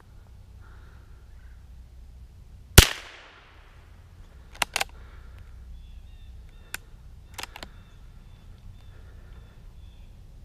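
A single .22 Long Rifle shot from a 1933 Savage Sporter bolt-action rifle about three seconds in: a sharp crack with a short echo fading over about a second. A few short sharp clicks follow over the next five seconds.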